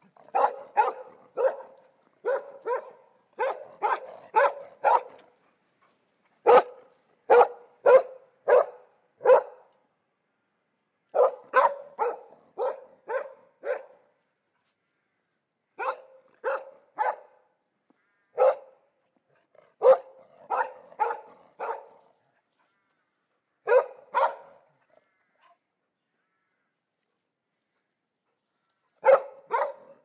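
German Shepherd barking in quick runs of several barks, separated by short pauses, with a longer pause of about four seconds near the end before the barking starts again.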